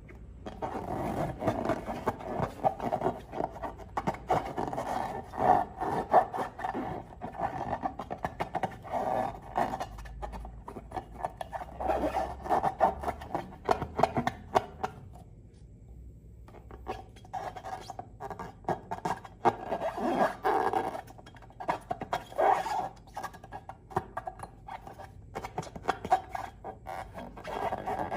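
Slime and rubber balloons being handled by hand, making dense, irregular crackling, rubbing and squishing sounds that ease off briefly around the middle.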